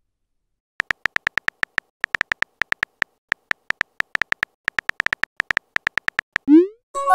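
Simulated phone keyboard tap sounds from a texting-story app: a quick, uneven run of short, pitched clicks as a message is typed letter by letter. Near the end comes a rising swoosh as the message is sent, and a brief tone starts right at the end.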